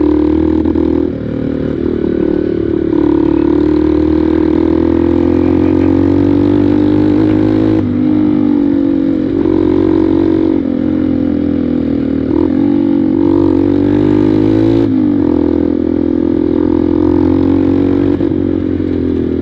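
Honda Bros 150 single-cylinder four-stroke motorcycle engine running under way on a rough dirt road, heard from on the bike. Its note climbs and then drops abruptly three times, about 8, 10 and 15 seconds in.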